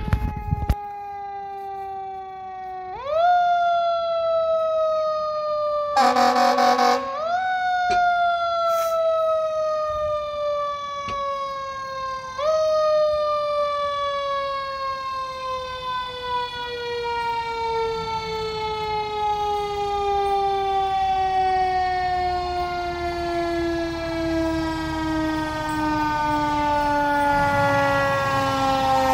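Fire engine siren wound up three times, each time climbing quickly and then coasting slowly down in pitch over several seconds. About six seconds in, a horn blast lasts about a second, and the truck's engine rumble grows near the end as it comes close.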